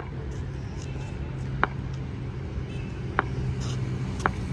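Four sharp, ringing knocks about a second and a half apart, over a steady low hum.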